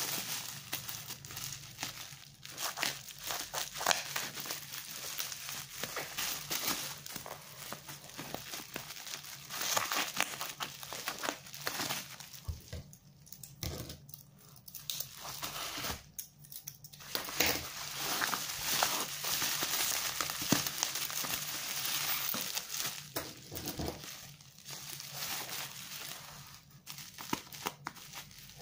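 Taped black plastic wrapping on a parcel crinkling and rustling as hands handle and squeeze it. The crinkling comes in irregular bursts with a few short lulls, and near the end scissors are pushed into the plastic.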